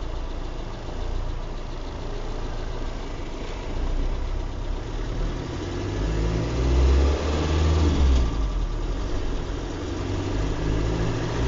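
Car engine running with tyre noise on a wet road, heard from inside the cabin as the car pulls away and drives along. The engine's low drone grows louder about six seconds in.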